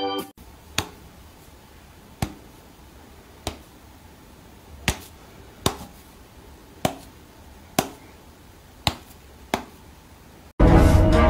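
A person snapping their fingers: about ten sharp snaps at irregular gaps of roughly a second, over faint room tone. Near the end, loud music with a horn cuts in.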